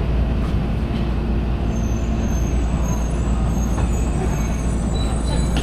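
Tokyo Metro Marunouchi Line subway train rumbling steadily, heard from inside the car as it brakes into the station. Faint, wavering high brake squeals come in from about two seconds in.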